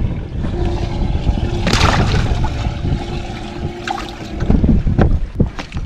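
Wind buffeting the microphone on a boat deck while a freshly caught crappie is put into the open livewell. A short splash-like rush comes about two seconds in, and a few knocks of the hatch and gear follow near the end, over a faint steady hum.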